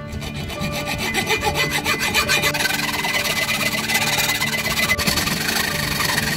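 Hacksaw cutting through an old soldering-iron tip clamped in a small bench vise: quick back-and-forth strokes of the blade on the metal rod, getting louder about a second in.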